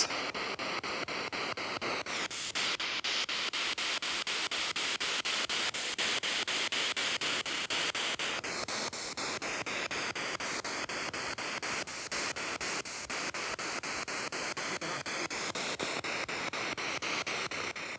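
Handheld SB7 spirit box scanning the radio band: a steady rush of radio static chopped into rapid, even pulses, with no voice coming through.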